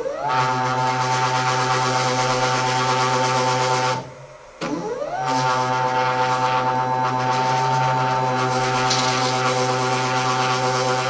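Stepper motor of the APSX-PIM desktop injection molding machine driving the clamping unit: a steady pitched hum that rises quickly in pitch as it starts. It runs about four seconds, stops for half a second, then starts again the same way and keeps running.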